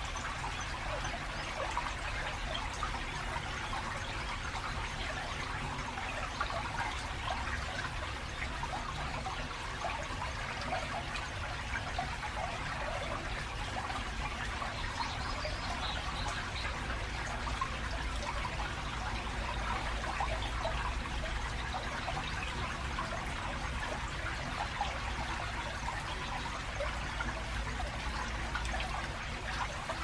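Shallow stream trickling and babbling steadily over stones between concrete channel walls, with a low steady rumble of road traffic underneath.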